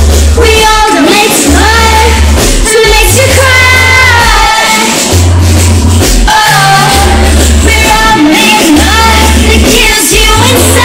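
Pop music: female singing over a deep bass beat that pulses roughly every second and a half.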